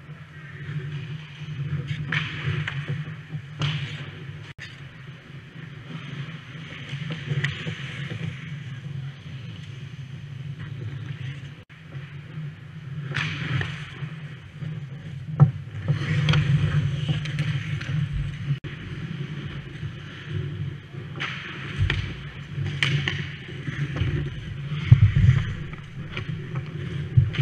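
Ice hockey play heard at the goal: skate blades scraping and carving the ice in repeated bursts, with a few sharp knocks of stick and puck, the loudest about 15 and 25 seconds in, over a steady low rumble.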